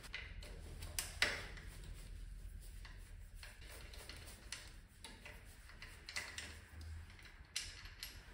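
Scattered light clicks and knocks at uneven intervals, the sharpest about a second in and another near the end, over a low steady hum.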